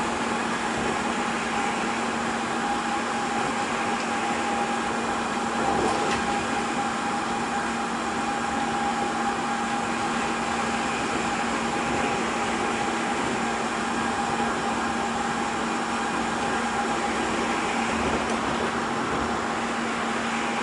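Osaka Monorail 3000 series car running between stations, heard from inside the cabin: the steady rolling noise of its rubber tyres on the guideway, with a steady low hum and a higher whine from the Hitachi IGBT inverter-driven motors.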